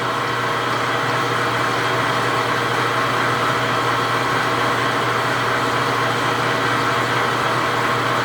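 Precision Matthews 1640 lathe running steadily at 105 RPM, the top of its low range, while a parabolic drill in the tailstock bores into cold-rolled steel with coolant fed through the drill. A constant low hum with an even, noisy cutting wash above it.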